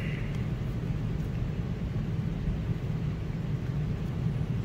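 Steady low background rumble, even and unchanging, under the pause in talk.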